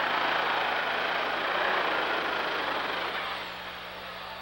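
Super stock pulling tractor's turbocharged diesel engine running flat out under full load down the pulling track, loud and rough, fading gradually over the second half.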